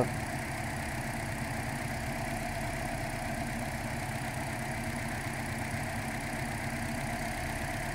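2012 Toyota Corolla's four-cylinder engine idling steadily, running rough with a dead misfire on cylinder 4 that the mechanic traces to spark not reaching the plug.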